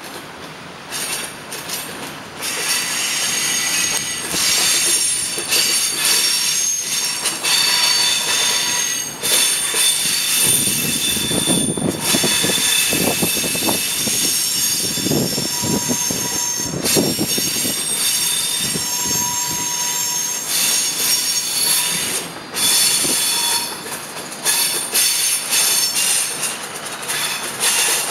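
Passenger train's wheels squealing as it rolls through the station tracks: several high-pitched squeals that come and go, with a stretch of heavier rumbling and clatter over the rails in the middle.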